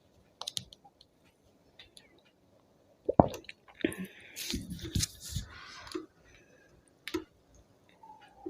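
Limca soda being chugged from a 2-litre plastic bottle: a sudden loud sound about three seconds in, then a couple of seconds of fizzing hiss with a few gulps, among scattered small clicks.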